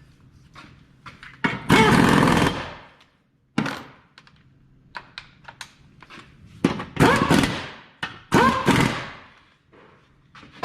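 Pneumatic impact wrench running in several short bursts, the longest about a second, driving home the 14 mm bolts and nuts on a sway bar bushing bracket.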